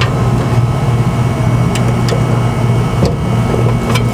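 Steady low machinery hum, with a few light clicks and taps of a wire being worked into a contactor's screw terminal with a screwdriver.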